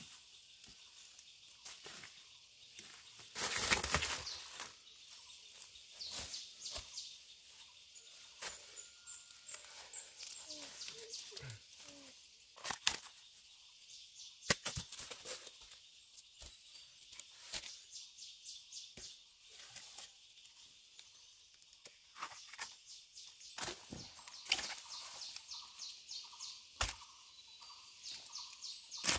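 Rural outdoor ambience: steady insect buzzing with fast high pulsing calls, broken by scattered sharp knocks and one louder rustling burst about four seconds in.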